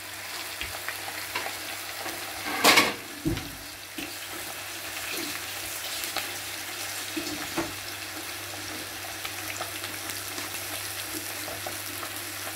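Two whole tilapia searing in about two tablespoons of oil in a frying pan: a steady sizzle with fine crackling. A brief louder clack about two and a half seconds in.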